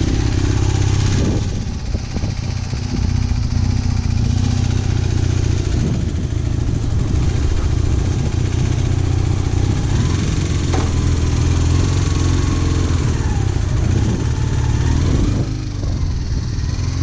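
Honda CB250N Superdream's parallel-twin engine running under way on the road, its pitch rising and falling a few times in the second half, under a heavy low rumble of wind on the microphone.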